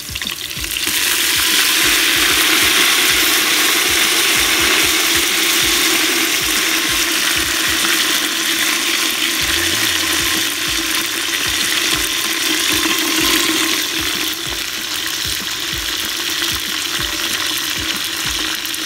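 Fresh mint leaves sizzling and crackling in hot oil in an aluminium pot. The sizzle sets in sharply about a second in as the wet leaves hit the oil, then runs on steadily and eases a little near the end.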